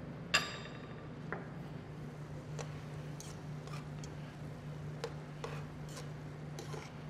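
Metal tongs clinking and tapping against a stainless steel sauté pan while stirring vegetables in cream: one sharp ringing clink about a third of a second in, then scattered lighter taps. A steady low hum runs underneath.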